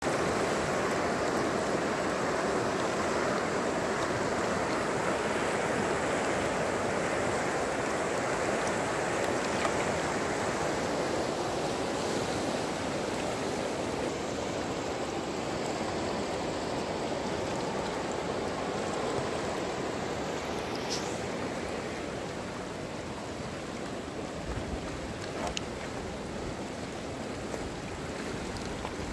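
River water rushing over stones, a steady hiss and churn that eases slightly in the last third.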